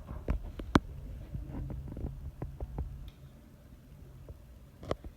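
Room noise: scattered sharp knocks and clicks over a low steady hum that fades about three seconds in.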